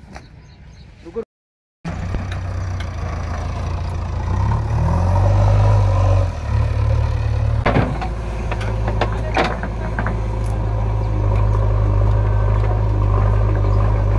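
JCB backhoe loader's diesel engine running under digging load: a loud, low engine note that shifts in pitch for a few seconds, then holds steady. A couple of sharp knocks come near the middle.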